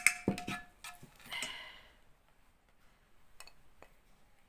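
Kitchenware clinking and knocking: a sharp clatter with a brief ringing tone at the start, a short noisy rustle about a second and a half in, then two faint ticks near the end.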